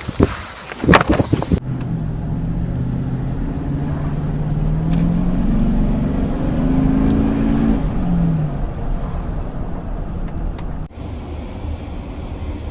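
Car engine and road noise, the engine pitch rising as it accelerates and dropping away about eight seconds in. A few loud knocks come in the first second or two.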